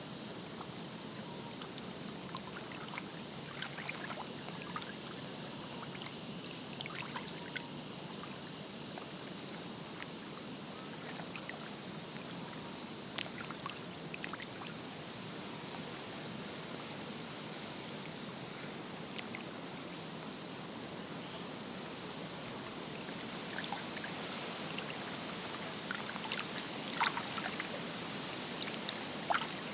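Lake water lapping gently at the shore, a steady wash with small splashes and trickles scattered through it. The splashes grow busier and a little louder near the end.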